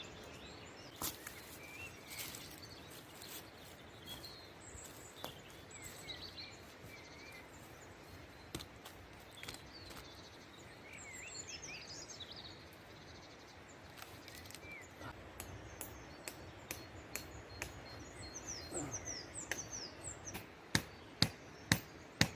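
Wild birds chirping in woodland. From about fifteen seconds in, a run of sharp knocks starts, getting louder and coming about twice a second near the end.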